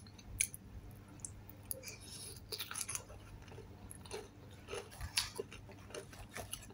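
A person chewing a bite of crispy fried chicken with the mouth closed, heard as faint, scattered clicks and crackles close to the microphone.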